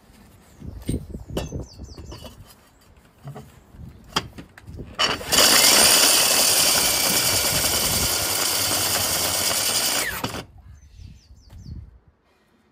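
Heavy electric core drill with a large core bit boring into a thick stone wall. It starts about five seconds in, runs loud and steady for about five seconds, then cuts off suddenly. Scattered knocks and clatter come before and after it.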